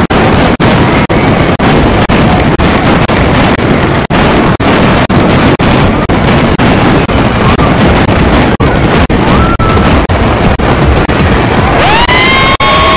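Loud, dense barrage of fireworks bursts and crackle, cut by brief gaps about twice a second. About a second before the end, a high tone rises and then holds steady.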